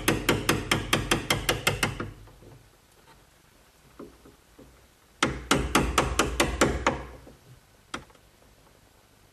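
Hammer tapping a chisel in quick, light, even strokes, about six a second, cutting a hinge mortise into hard oak. Two runs of taps, with a few faint taps between and a single knock near the end.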